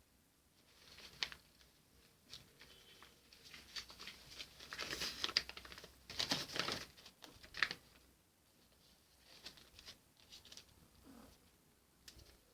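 Soft rustling and brushing noises from a hand stroking a cat's fur, louder for a couple of seconds in the middle, with a few scattered light clicks.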